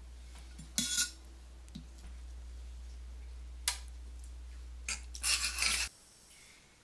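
A few brief clinks and scrapes of utensils against a metal pan, the last group lasting about a second, over a low steady hum that cuts off suddenly near the end.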